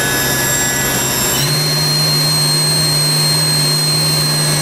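Haas VF-2 CNC vertical mill spindle running unloaded with a steady whine. It steps up to the next higher speed about a second and a half in, part of a run through its RPM range, and holds there.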